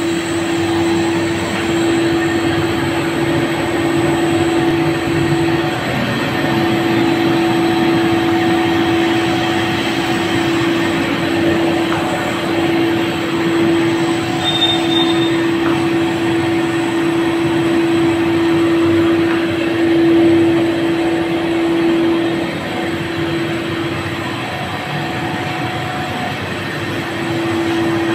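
Cornstarch mono-layer blown film plant running: a steady mechanical drone with a constant hum, unchanging throughout.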